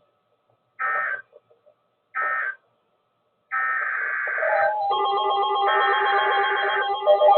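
Emergency Alert System SAME data bursts closing the alert: short bursts of digital warbling tones about a second and a quarter apart, then a longer burst about three and a half seconds in. Music begins about five seconds in.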